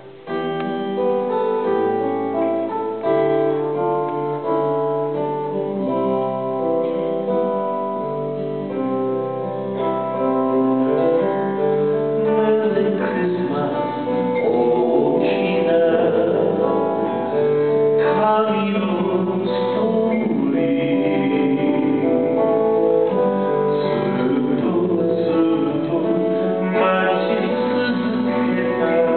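Live song performed by a duo: singing accompanied by a strummed acoustic guitar. The music grows fuller and louder about ten seconds in.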